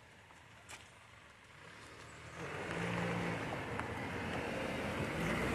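A car approaching along the road, its engine and tyre noise swelling from about two seconds in and staying loud to the end.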